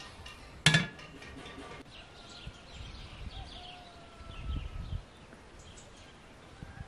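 The metal firebox door of a brick stove clangs shut once, with a short metallic ring. Then small birds chirp and whistle outdoors, with a low rumble a little after the middle.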